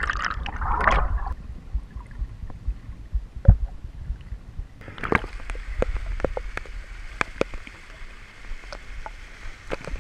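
Water sloshing and splashing close to the microphone, with scattered knocks and a sharp thump about three and a half seconds in.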